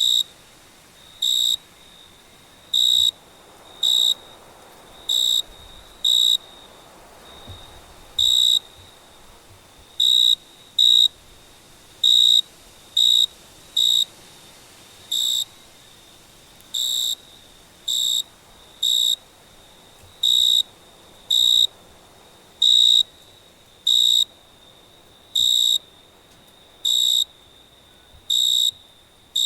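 A cricket chirping: short, high-pitched chirps about once a second, unevenly spaced, over a faint background hiss.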